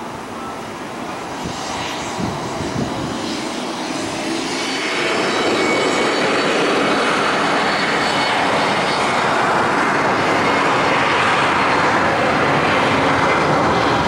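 Jet airliner engines. First comes an Embraer 190 on its takeoff roll. From about five seconds in it gets louder: an Airbus A320 with IAE V2500 engines passes low on approach, a steady rush with a high whine over it.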